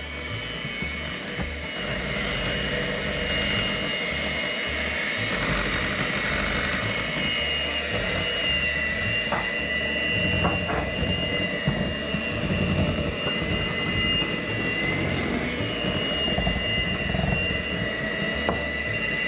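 Electric hand mixer running steadily with a high motor whine, its beaters mixing flour into a thick cake batter in a glass bowl. A few light clicks break in near the middle and near the end.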